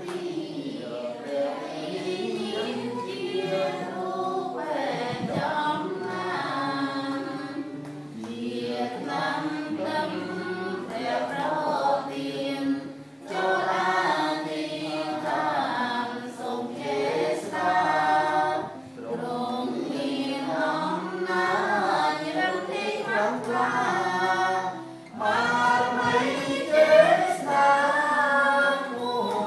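Singing of a church song in long phrases, with short breaks between them.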